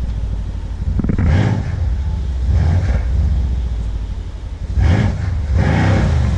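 A car engine running with a low rumble, swelling louder about a second in and again around five to six seconds in.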